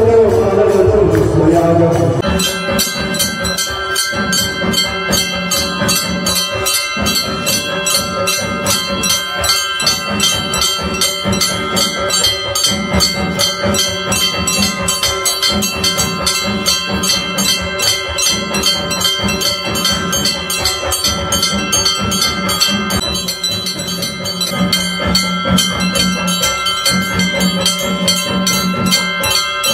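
Bells rung rapidly and without pause for an aarti, a fast, even clatter of strokes over a sustained ringing; singing breaks off about two seconds in as the bells take over.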